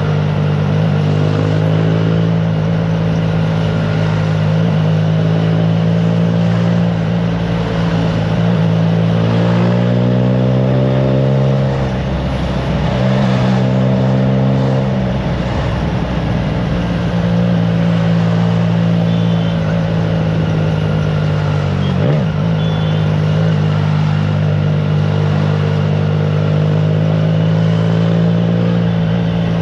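Triumph Trident 660's inline three-cylinder engine through a FireTong exhaust, pulling at a steady cruise on the road with wind noise on the microphone. Around the middle the revs sag and climb again through throttle changes, with a short drop about twelve seconds in, and there is a single sharp click about two-thirds of the way through.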